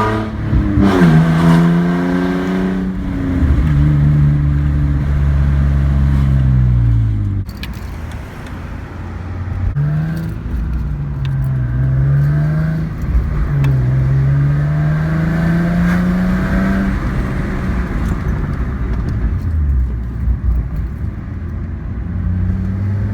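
Nissan 350Z's V6 engine pulling and slowing by turns, its pitch rising as the car accelerates and falling as it brakes, several times over: the stop-and-go runs used to bed in new front brake pads.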